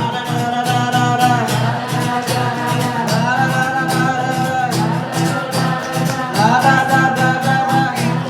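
Acoustic guitar strummed in a steady rhythm under long, held wordless sung notes that slide up into new pitches twice.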